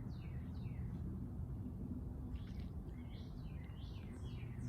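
A songbird singing: runs of quick, falling chirps at the start and again from about halfway through, over a steady low rumble.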